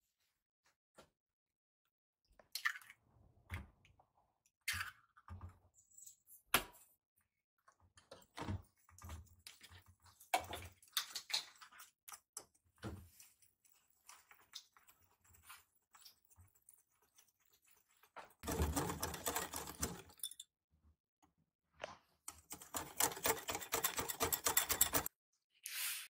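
Wire whisk beating okonomiyaki batter in a glass bowl: fast, rhythmic clattering strokes in two long spells in the second half. Before that, scattered taps and clinks of a metal scoop against the bowl and flour carton.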